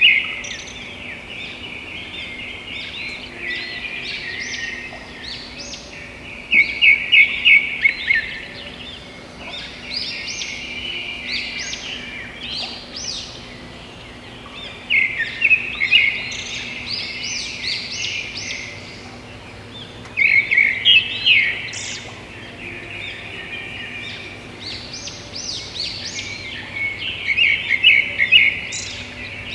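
Many small birds chirping in a busy, overlapping chatter, with louder bursts of rapid chirps about a quarter, half, two-thirds and nine-tenths of the way through.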